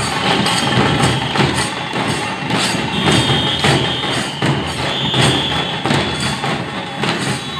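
Drums and percussion of a street procession band beating a steady march rhythm, about two strokes a second, with a high held whistle-like tone sounding now and then.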